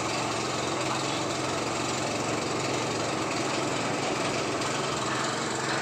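Motorcycle engine running steadily at an even speed.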